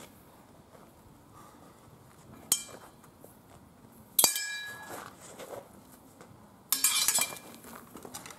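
Steel swords and bucklers clanging together in sparring: a single ringing clank about two and a half seconds in, a louder one a little after four seconds, and a quick flurry of clashes near seven seconds.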